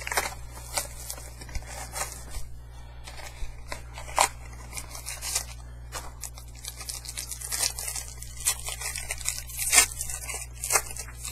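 A small trading-card pack (a 2010 Topps UFC Knockout mini box) being torn open by hand: tearing and crinkling of the wrapper, then scattered sharp clicks and rustles as the cards are handled. A steady low hum runs underneath.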